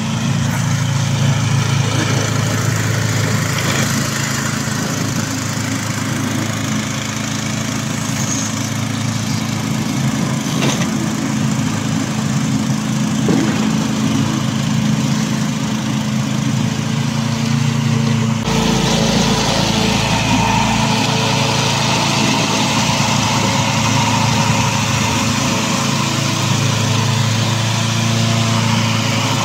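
Petrol engine of a remote-controlled tracked mower running steadily as the machine pushes snow with its front blade. The sound changes abruptly about two-thirds of the way through.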